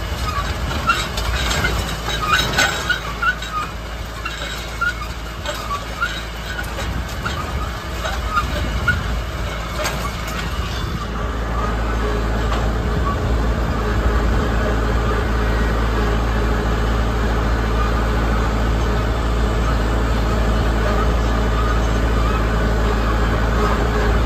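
Tractor engine running steadily while pulling a seed drill, with scattered clinks and rattles in the first half. About halfway through the engine gets louder and then holds steady.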